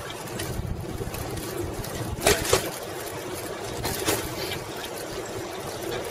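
Bicycle riding along an asphalt path: a steady rumble of wind and tyres on the bike-mounted microphone, with a few sharp rattles, two close together about two seconds in and one about four seconds in.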